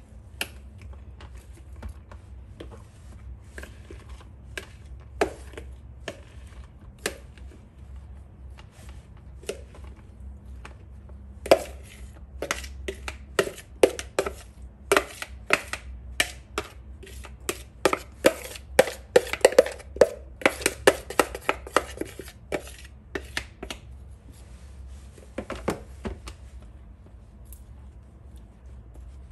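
Cauliflower florets being scraped out of a plastic bowl with a silicone spatula and dropped onto a non-stick dehydrator sheet: a string of sharp clicks and knocks, sparse at first, quick and dense for about ten seconds in the middle, then tapering off.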